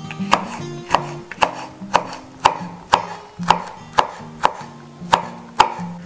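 Chef's knife slicing a red chili pepper on a wooden cutting board, the blade striking the board in a steady rhythm of about two cuts a second, with background music underneath.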